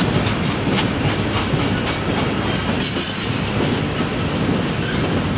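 Train cars rolling past close by: a steady rumble of steel wheels on rail, with clicks as they cross rail joints. A brief high squeal about three seconds in.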